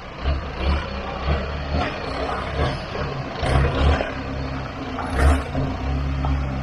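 Off-road four-wheel-drive's engine revving in bursts on an obstacle, its deep rumble swelling and dropping several times, with a few short rushes of noise, the loudest about five seconds in.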